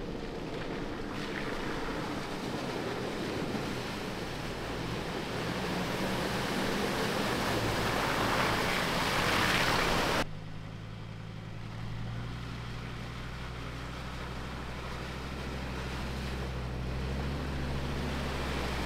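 Four-wheel-drive utes driving slowly through a shallow muddy water crossing: water splashing and washing around the tyres over the running engines. The splashing builds to its loudest and cuts off suddenly about ten seconds in, followed by a steady low engine hum with softer water swishing.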